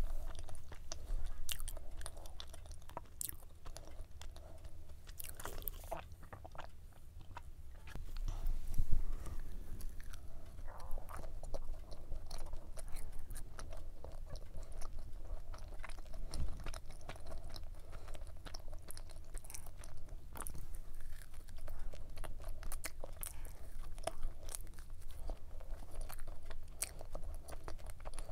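Close-miked chewing and biting of a Lotus cube pie, flaky pastry with a cookie-crumb topping, crunching in many small crisp clicks. One louder bite comes about nine seconds in.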